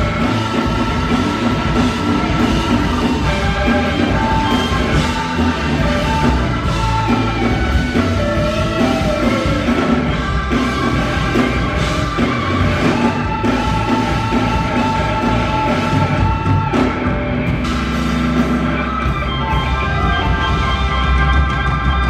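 Live rock band playing loudly: drum kit under long held notes from the instruments.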